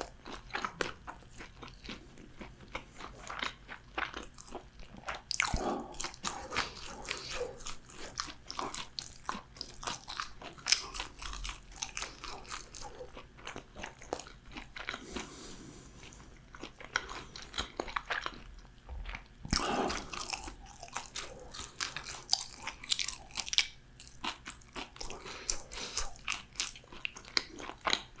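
Close-miked crunching and chewing of crispy deep-fried food: a steady run of crackly bites and chews, with a few louder crunches along the way.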